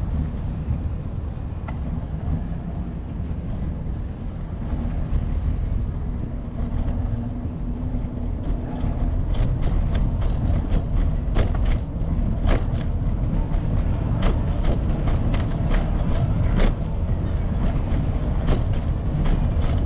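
A steady low rumble, with irregular sharp clicks and rattles starting about nine seconds in.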